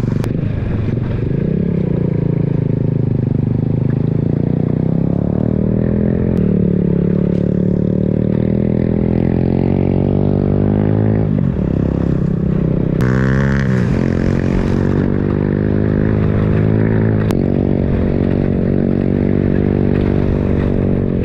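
Motorcycle engine running under way uphill. Its pitch holds steady, then dips and climbs again twice past the middle, as with gear changes, over a low wind rumble on the microphone.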